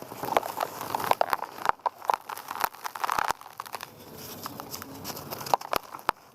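Dry, gritty mud crumbling and breaking apart: irregular crisp crunches and crackles, dense for about the first three seconds, then sparser, with a few sharp cracks near the end.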